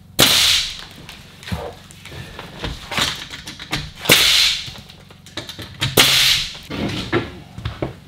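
Pneumatic nailer fastening OSB sheathing to wall studs: four loud shots, each a sharp crack trailing into a brief hiss, with smaller knocks between them.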